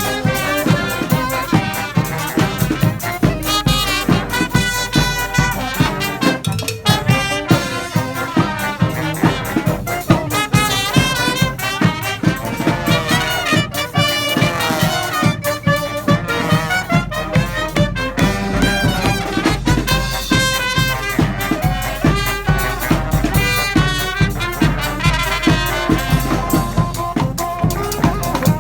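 Live brass band music: trumpets and trombones playing a tune over a steady drum beat.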